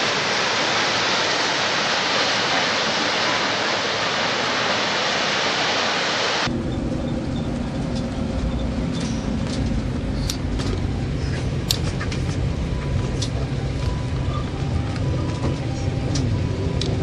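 Kegon Falls waterfall rushing as a dense, steady water noise. About six and a half seconds in it cuts off abruptly, and a low steady vehicle rumble with scattered light clicks takes over.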